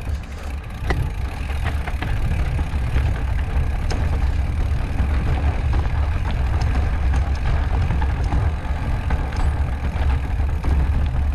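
Steady low wind rumble buffeting the camera microphone while riding over bare sandstone, with scattered clicks and rattles from the bike and its tyres on the rock.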